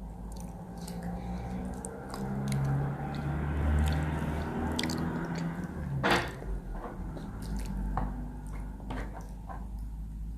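Chewing and mouth sounds of someone eating, with scattered small clicks over a steady low hum.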